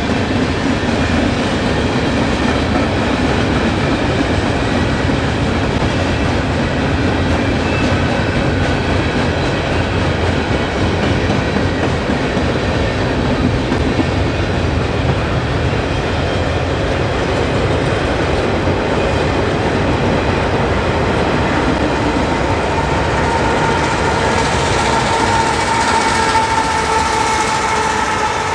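Freight train cars rolling past with a steady clatter of wheels on the rails. A faint high whine, slightly falling, comes up in the last few seconds.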